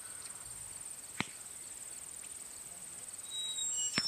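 A high, steady insect buzz with a fast pulse, from crickets or similar field insects, broken by two sharp clicks: one about a second in and a louder one near the end.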